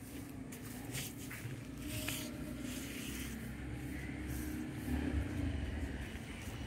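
A steady low motor hum, a little louder after about five seconds, with a few faint clicks and rustles.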